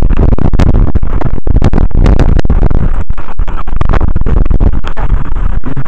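Strong wind buffeting the microphone: a loud, distorted rumble that cuts out for an instant again and again, with rough water possibly under it.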